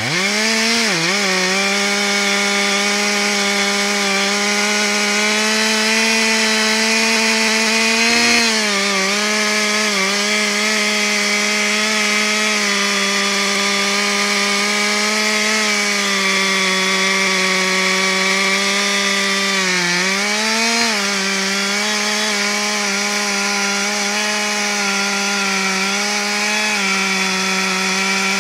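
Two-stroke chainsaw running at full throttle while cutting deep into a large log. The engine note holds steady, sagging briefly a few times as the chain bogs under load, most deeply right at the start and again about two-thirds of the way through.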